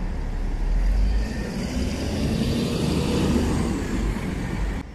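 Street traffic: a motor vehicle running past with a low engine rumble and tyre hiss. It cuts off suddenly near the end.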